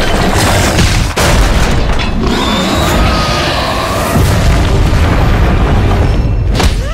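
Animated sound effects of a giant robot smashing through stone paving: continuous loud rumbling booms with crashing, cracking rubble and several sharp impacts, over music.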